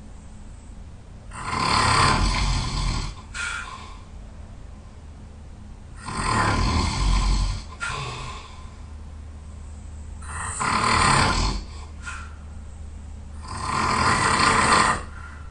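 A person snoring loudly: four long snores about four seconds apart, with shorter, softer breaths after some of them.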